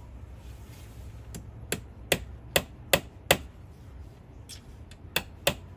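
Hammer tapping a nail into the wooden slat of a planter box: six sharp strikes in a steady run, a pause, then four more near the end.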